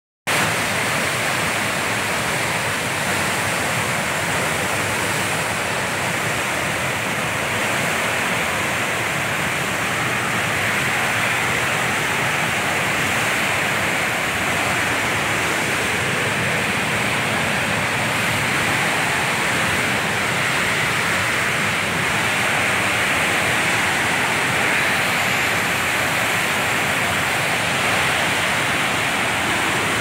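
Waterfall: a steady, loud rush of falling water that does not let up.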